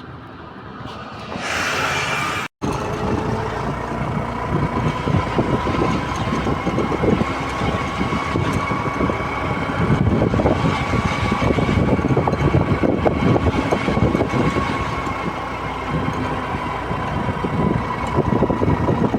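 Riding a Honda Activa scooter on the road: wind buffets the microphone over engine and tyre noise, with a steady whine above it. A louder rush comes about two seconds in, and the sound drops out for an instant at an edit.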